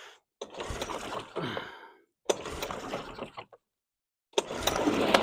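Recoil starter cord of an early-1980s Suzuki 2 hp two-stroke outboard pulled three times, cranking the cold, choked engine; the first two pulls don't start it, and on the louder third pull near the end the engine begins to fire.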